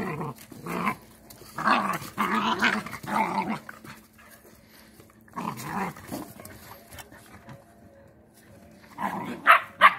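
Puppies growling and barking as they play-fight, in several bursts. The longest growling is a couple of seconds in, and two sharp barks come near the end.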